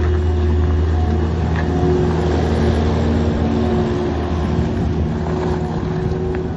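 Kubota diesel engine of a 2008 Thomas 153 skid steer running steadily.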